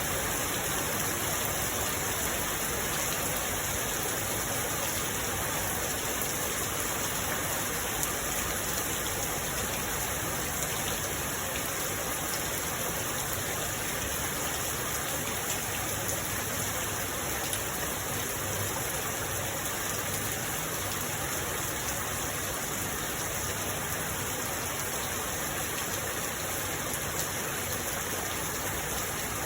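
Steady rain falling, a continuous even hiss without pauses.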